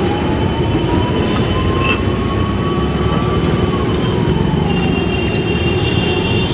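Busy street traffic: engines and tyres, steady and loud, with a faint whine that slowly rises and then falls in pitch.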